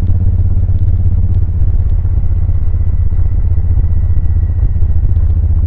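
A 2000 Suzuki VL1500 Intruder LC's V-twin running steadily under way, its exhaust note largely drowned out by a heavy low rumble of wind noise on the microphone.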